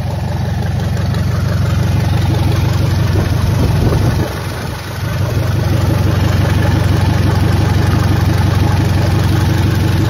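Daihatsu 14B four-cylinder diesel engine idling on a test stand in a steady run, its sound dipping briefly about four seconds in before settling back.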